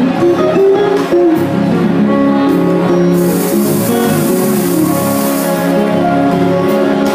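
Live band music with no vocals: electric guitar playing over a drum kit and other instruments.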